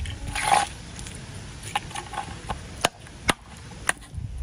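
A die-cast toy car and chunks of ice being handled on wet concrete: a short scrape, then about six sharp clicks and knocks.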